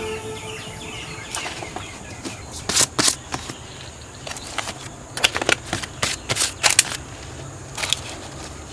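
Banana-leaf-wrapped rice packets set one after another into a cane wicker basket: a string of short, crisp crackling rustles of dry leaf and light knocks against the cane.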